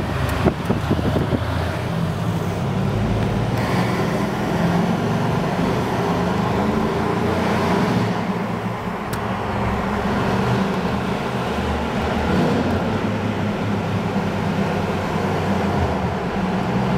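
Mansory-tuned Mercedes G63 AMG 6x6's twin-turbo V8 running steadily, its low exhaust note echoing in a road tunnel. A few sharp cracks are heard about a second in.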